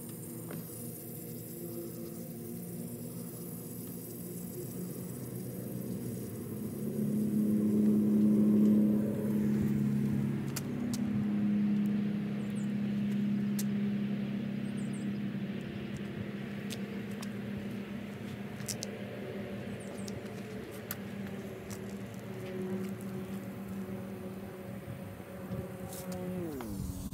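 Steady low mechanical hum and rumble with several held tones, growing louder about a third of the way in, then easing. A tone glides down in pitch just before the end.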